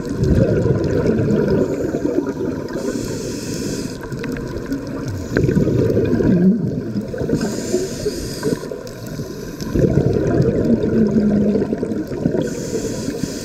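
Scuba diver breathing through a regulator underwater: a short hiss on each inhale, then a longer bubbling, gurgling exhalation, about three breaths in a steady cycle of roughly four seconds.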